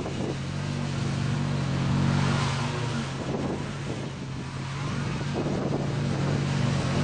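Riding lawn tractor's engine running steadily under load while it mows tall, thick grass, a low drone with a steady hiss over it. The sound grows louder and softer as the tractor moves across the field.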